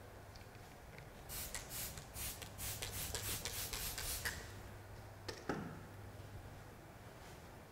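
A quick run of about ten soft rubbing strokes over some three seconds, followed a little later by a single click, over a faint steady hum.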